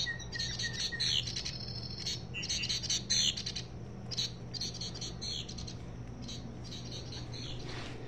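Recorded reed bunting song played through the small speaker of a Wild Republic Audubon plush bird's sound chip: four short bursts of high, quick chirping phrases about two seconds apart, over a low steady hum.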